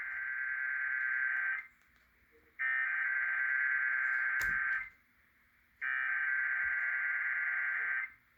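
Emergency Alert System SAME header: three bursts of screeching digital data tones, each about two seconds long with about a second's pause between them, sending the coded alert that opens a Required Monthly Test.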